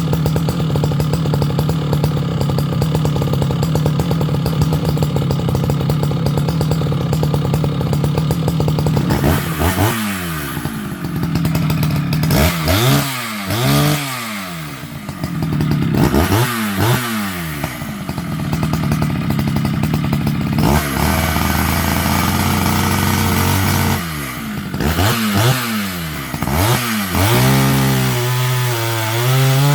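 Dolmar 153 chainsaw's 100 cc two-stroke engine held at high revs, then blipped repeatedly, its pitch dropping and climbing again every few seconds and settling briefly to a lower idle before revving back up near the end.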